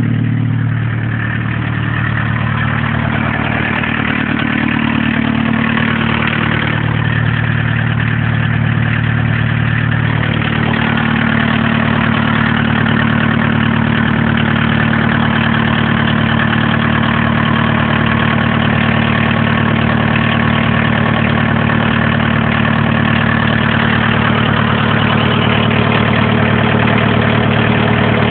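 1981 VW Rabbit's four-cylinder diesel engine running at idle. Its note shifts a little in the first ten seconds, then holds steady.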